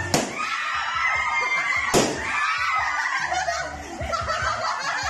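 Two balloons bursting, one right at the start and a louder one about two seconds in, over a group of people shrieking and laughing.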